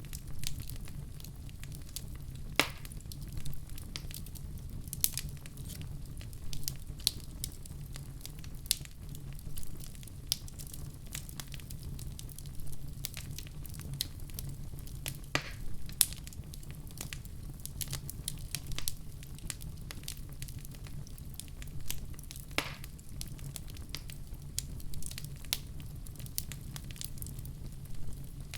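Wood fire burning in a fireplace: a steady low rumble with irregular crackles and sharp pops scattered throughout, a few louder pops standing out.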